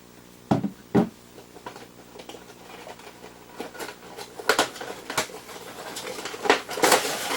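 Action figure's plastic packaging tray being pulled out of its cardboard box: a few sharp plastic clicks and knocks, scattered, then a denser burst of crinkling rustle near the end.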